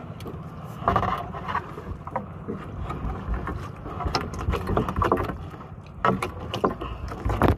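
Low, steady rumble of wind and water around a small boat at sea, broken by irregular knocks and thuds as a large speared fish and the spear shaft are handled against the boat.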